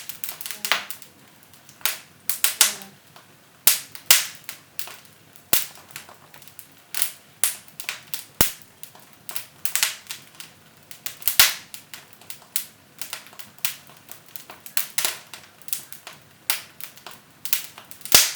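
Firewood burning in a fireplace, crackling with sharp, irregular pops and snaps, a few each second.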